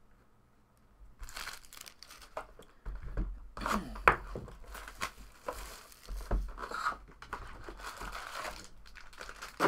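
Sealed trading-card hobby box being torn open by hand: crinkling and tearing, starting about a second in, with a sharp snap about four seconds in.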